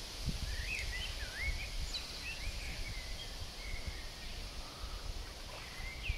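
Wind buffeting the microphone in a gusty low rumble, with birds singing in quick rising and falling chirps throughout.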